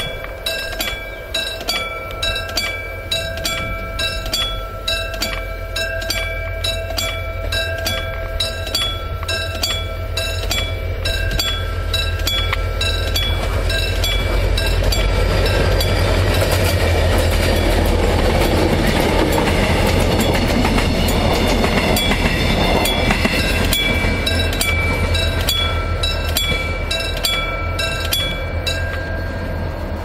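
Level-crossing warning bell dinging in a fast, even rhythm while a Mugunghwa-ho passenger train hauled by a Korail diesel locomotive passes. The diesel engine's low drone and the rumble of the train swell to their loudest about halfway through, then ease off as the train moves away. The dinging keeps on until near the end.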